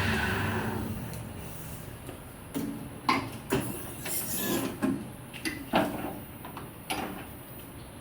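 A lathe running down to a stop, its steady hum fading away over the first second or so, followed by a scattered series of sharp metal knocks and clinks.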